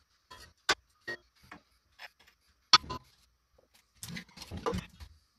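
A few sharp metallic clicks and knocks of hand tools on the transmission pan bolts underneath the Jeep XJ, the loudest about three seconds in, then a short spell of clattering near the end.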